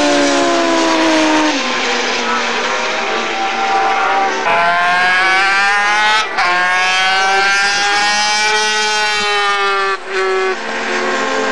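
Racing sidecar outfits' engines running at high revs as they go past on the circuit, the pitch sliding down and then climbing again as they accelerate. The sound breaks off abruptly for a moment about six seconds in and again near the end.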